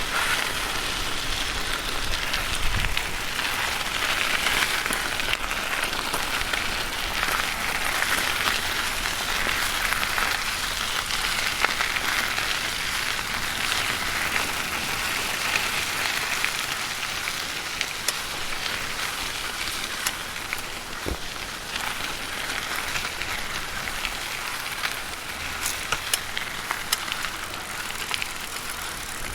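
Bicycle tyres rolling and crunching steadily over loose gravel, with scattered small pops and clicks of stones.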